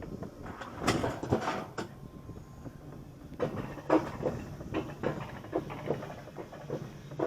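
Wiegand alpine coaster sled rattling and knocking along its steel track. A clatter comes about a second in, and from midway there is a run of knocks about three a second.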